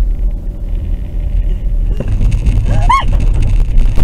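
Steady low rumble of a car driving on a snowy street, heard from inside the cabin by a dashcam. About three seconds in there is a brief rising pitched sound, and a sharp knock comes at the very end as another car slides in front.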